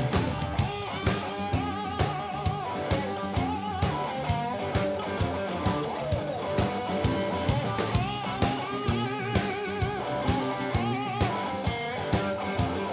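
A blues band playing a shuffle. An electric guitar plays bending, wavering lead notes over a steady drum beat and bass.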